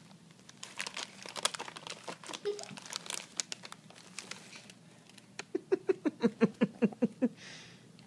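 A prairie dog rummages with its head inside a Cheetos bag, and the plastic snack bag crinkles and crackles in many small bursts. About five and a half seconds in, a quick run of about a dozen short pitched pulses, some six a second, is the loudest sound.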